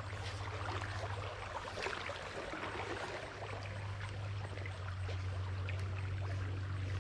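Shallow stream babbling over a rocky riffle, a steady rushing with small crackling splashes, over a constant low rumble.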